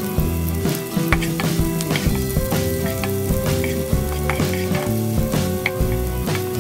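Sliced shallots and garlic sizzling and crackling in hot oil in a non-stick wok, stirred now and then with a wooden spatula. Music with steady, stepping notes plays underneath.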